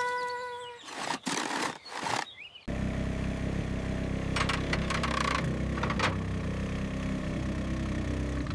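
Clattering, scraping crashes, then from about three seconds in a motor running with a steady low rumble, broken by a few short rattles.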